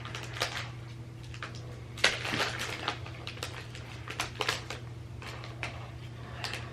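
Crisp sea salt cocoa corn cake crunching in irregular short crackles as pieces are broken off and chewed, the loudest crack about two seconds in.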